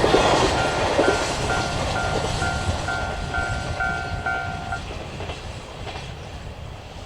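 A train passes and moves away, its wheels clattering over the rail joints and fading steadily. Over it a Japanese level-crossing warning alarm rings about twice a second, then stops about five seconds in.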